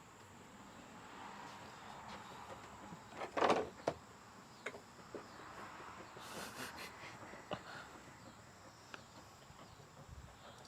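Scattered light knocks, clicks and rustles of large plastic skeleton parts being handled and set down, with one louder clatter about three and a half seconds in, over a faint steady outdoor background.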